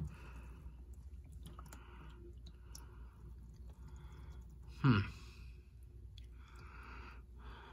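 Engine oil trickling faintly from a Chevy 350's oil pan into a drain pan; the oil is thin and watery and smells of gasoline. About five seconds in comes one short, louder sound that falls in pitch, like a sigh.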